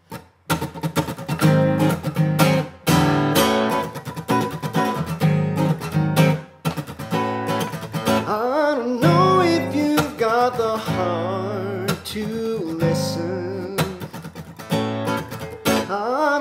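Acoustic guitar strummed in a steady rhythm as a song's instrumental intro, then a man's voice starts singing over the guitar about halfway through.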